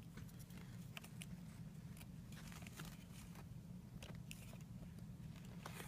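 Faint, scattered small clicks from a 1/50 scale model excavator and its attachment being handled, over a steady low hum.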